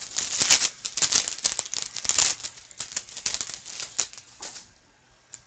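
A hockey card pack's wrapper being torn open and crinkled, then cards slid out: a dense run of crackling and rustling that stops about four and a half seconds in.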